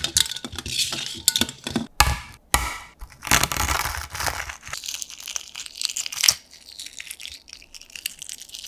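Tongs clinking against ice in a steel bowl, then the shell of a hard-boiled egg crackling as it is rolled and crushed on a wooden board, followed by fainter crinkling as the cracked shell is peeled off.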